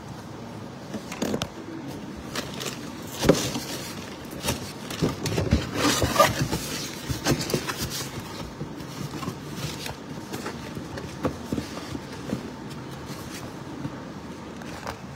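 A cardboard box being handled and opened by hand: scattered knocks and scrapes of the cardboard, with a busier stretch of rustling in the middle as an item is pulled out.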